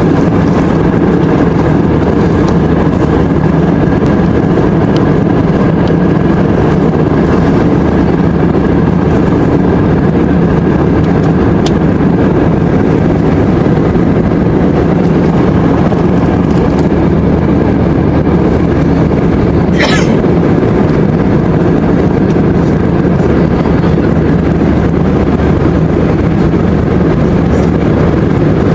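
Steady drone of an airliner in flight, heard inside the cabin, with one short sharp sound about twenty seconds in.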